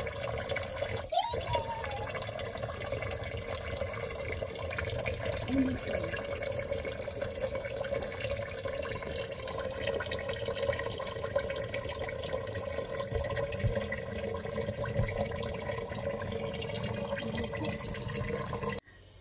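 Kitchen tap running a steady thin stream of water into a metal pot of rice while hands wash the rice in it. The sound cuts off abruptly near the end.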